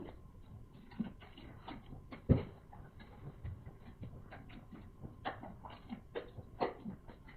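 Close-up chewing of tough, rubbery boiled sea snail meat: irregular wet mouth clicks and smacks, with one louder thump about two seconds in.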